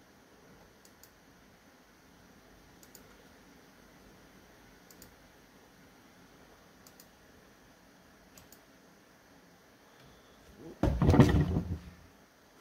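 Quiet room tone with a few soft clicks scattered through it. Near the end comes about a second of loud, rough, low noise.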